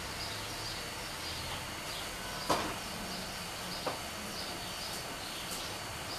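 A small bird chirping over a steady background hiss, with short high calls repeated a couple of times a second. A sharp click comes about two and a half seconds in, and a fainter one near four seconds.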